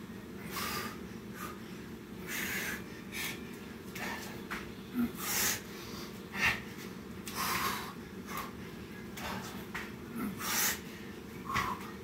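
A man breathing hard from exertion, with short, sharp breaths about every second or so, over a steady low hum.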